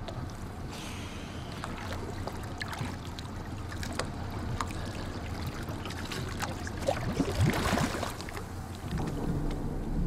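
Water sloshing and splashing around a scuba diver at the surface beside a small boat, with scattered small drips and clicks. About seven seconds in comes a louder burst of splashing and bubbling as the diver goes under.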